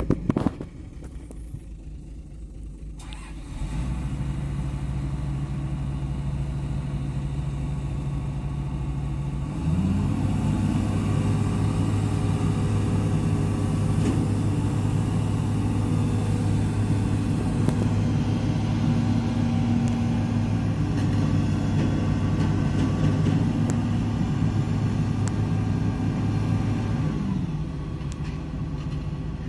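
Excavator's diesel engine running. It steps up in speed twice, a few seconds in and again around ten seconds, holds the higher speed, and drops back near the end.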